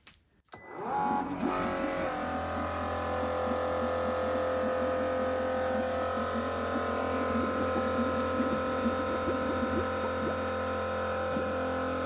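Milwaukee 18-volt battery-powered bilge pump switched on: about a second in its motor spins up with a rising whine, then runs steadily with a low hum. It is circulating descaling vinegar through a tankless water heater clogged with limescale, with a faint trickle of vinegar from the return hose into a bucket.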